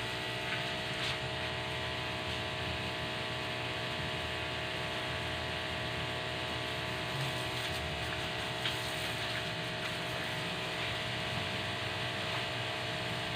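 Electric high-pressure washer running with a steady hum.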